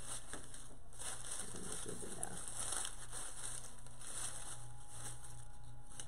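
Crinkly rustling of ribbon and artificial flowers and foliage as hands fluff and arrange them in a grapevine wreath, with a steady low hum underneath.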